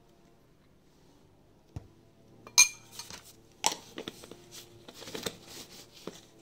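Glass jars and a metal screw lid clinking and knocking as they are handled over a glass bowl. One sharp ringing clink about two and a half seconds in is the loudest, followed by a run of lighter clicks and taps as a lid is twisted onto a jar.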